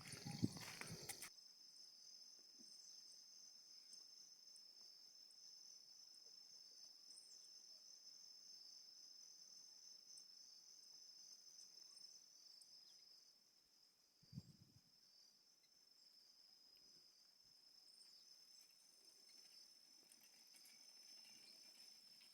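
Faint, steady chorus of insects giving an even high-pitched trill. A brief louder noise comes at the very start, and a single low thump comes about two-thirds of the way through.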